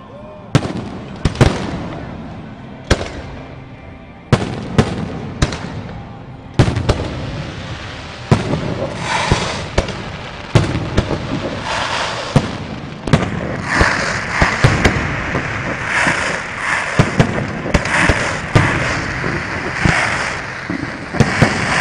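Aerial fireworks display: sharp bangs of shells bursting, a second or two apart at first, then coming faster and overlapping from about eight seconds in, with a continuous din filling the gaps between them.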